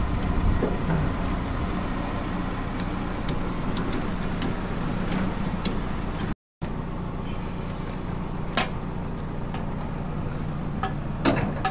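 Steady low rumble of an idling vehicle engine, with a few sharp metallic clicks and knocks as the steel smoker lids are handled and opened.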